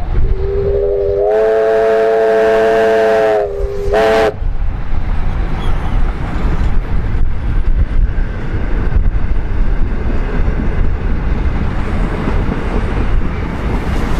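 Steam locomotive whistle of Victorian Railways R class R761: one long blast that opens on a single note and swells into a fuller chord, then a short second toot about four seconds in. After it comes the steady rumble and clatter of the train's passing carriages.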